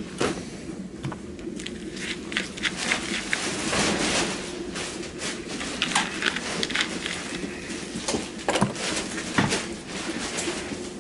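Rustling, clicks and light knocks of things being handled at the bedside, irregular and fairly frequent, over a steady low hum.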